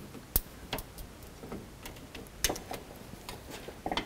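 Metal tool prying at a plastic clip that holds the hood cable to the radiator core support: a few sharp clicks and light scrapes at irregular intervals, the loudest about half a second in and again about two and a half seconds in.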